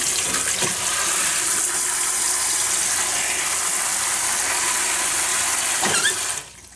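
Kitchen faucet spray running hard onto plastic zip-top bags of cooked chicken breast in a stainless steel sink, cooling them quickly with cold water. A couple of light knocks come as the spray head is handled, and the water is turned off shortly before the end.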